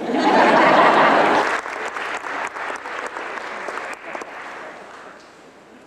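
Audience applauding: a full burst of clapping for the first second and a half, then thinning to scattered claps that die away.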